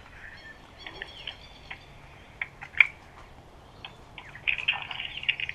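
Small birds chirping in short, high calls, with a busier run of chirps near the end and one sharp click about halfway through.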